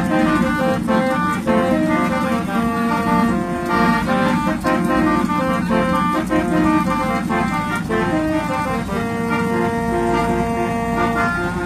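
Old-style musical vehicle horn playing a tune: a string of held notes that change pitch every fraction of a second, a few held longer, over a steady low rumble.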